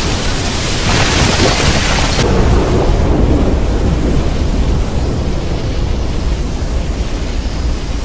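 Anime sound effect of a massive shockwave blast flattening a village: a loud, continuous rumble of destruction. A brighter rush swells about a second in and eases after about two seconds.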